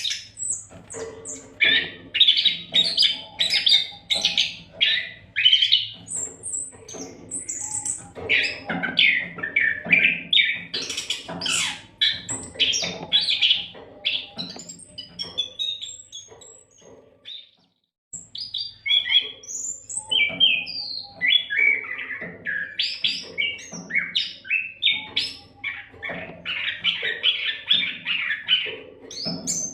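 Oriental magpie-robin (kacer) singing energetically, a rapid, varied run of loud whistles and chirps, broken by a short pause a little past the middle.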